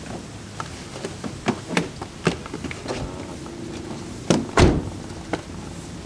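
A car door being shut with a heavy double thunk about four and a half seconds in, the loudest sound, after several lighter clicks and knocks as someone gets out of the car.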